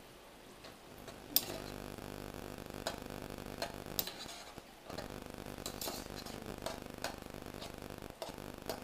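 A metal spoon stirring simmering lentils in a stone-coated pot: a run of irregular clicks and scrapes as the spoon knocks the pot's side, over a steady low hum.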